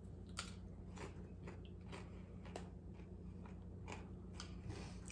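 Faint chewing on crunchy corn tortilla chips: a series of short, irregular crunches.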